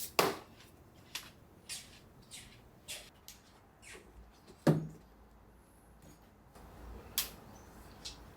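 A series of short clicks and knocks from kitchen items being handled, with two louder knocks about a quarter second in and halfway through, and another sharp click near the end.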